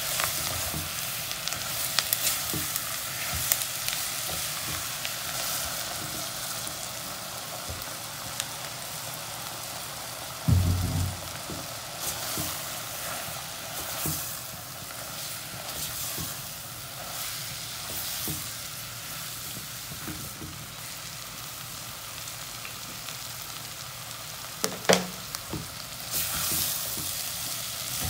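Sliced portobello mushrooms with onion and celery sizzling steadily in butter and olive oil in a ceramic pot, stirred with a silicone spatula that scrapes and taps against the pot. A low thump about ten seconds in, and a few sharper knocks near the end.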